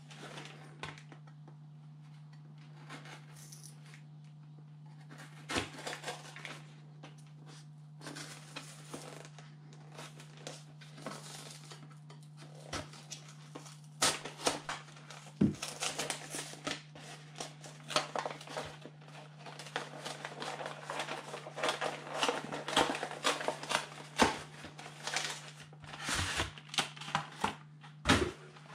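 A knife cutting and prying open a small cardboard and plastic trading-card box, with irregular scrapes, clicks and plastic crinkling, sparse at first and busy through the second half. A steady low hum sits underneath.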